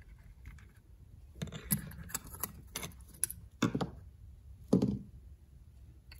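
Small metal parts of a Rochester Quadrajet carburetor clicking and rattling against the carburetor body as they are handled and lifted out of the float bowl. The clicks are light and irregular, and the sharpest ones come a little before four seconds in and about five seconds in.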